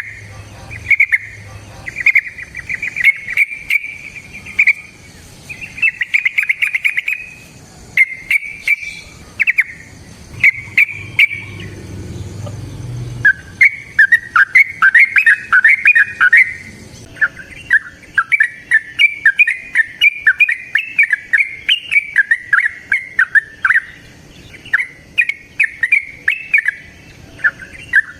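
Yellow-vented bulbul (trucukan) singing short bubbling, warbling phrases over and over. About halfway through, the song turns into a faster, near-continuous run of phrases. Sharp clicks are scattered throughout.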